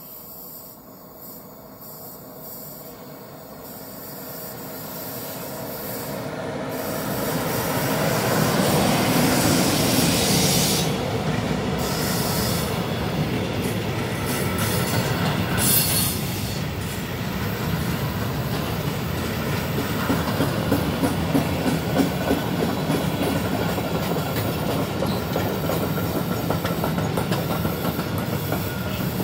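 ES64F4 electric locomotive approaching and passing with a freight train, growing steadily louder over the first nine seconds or so. It is followed by the steady rumble of a long string of covered freight wagons rolling by, with rhythmic wheel clicks over the rail joints, more frequent in the second half.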